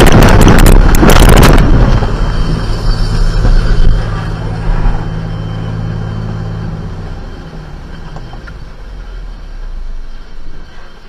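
A car crashing off the road: loud crashing and scraping impacts for about the first second and a half, then a low steady hum that fades away over several seconds.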